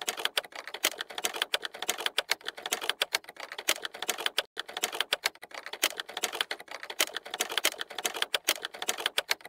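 Rapid, irregular clicking of keys being typed, several strokes a second, with a brief pause about four and a half seconds in.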